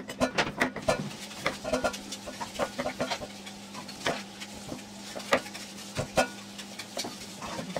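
Knife chopping daikon radish into chunks on a round wooden chopping block: irregular sharp knocks of the blade striking the block.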